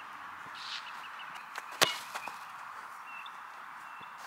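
Open-air ambience with a steady hiss and small birds chirping, broken by one sharp thump about two seconds in.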